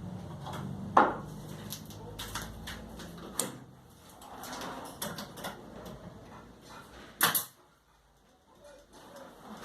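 Sharp knocks and clatter of wood and tools being handled at a workbench: a loud knock about a second in, a lighter one a couple of seconds later, and a quick double knock near the end.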